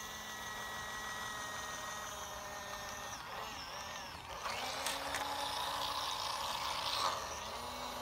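Small battery-powered mini beauty-sponge washing machine running with a velour powder puff in soapy water, its little motor whirring steadily; the puff is not being tumbled. From about four and a half seconds in to about seven seconds it gets louder and rougher while a hand presses on the machine.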